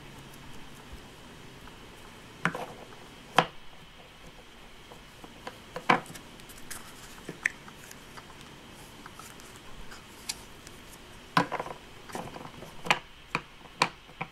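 Hands working Play-Doh out of plastic tubs and into a plastic mold: scattered light knocks and clicks of plastic on plastic and on the tabletop, with more of them close together near the end.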